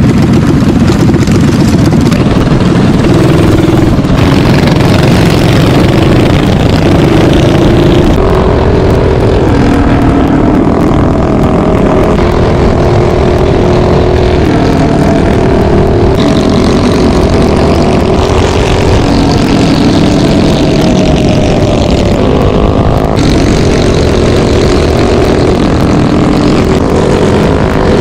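Minibike engines running hard while riding along a highway, the engine pitch rising and falling with the throttle, over a steady rush of wind noise.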